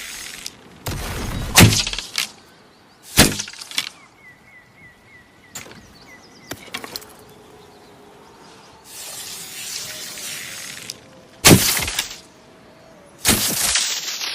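Bow-and-arrow sound effects: four sharp cracking thuds of arrows striking, two in the first few seconds and two near the end, with a hissing rush of air between them.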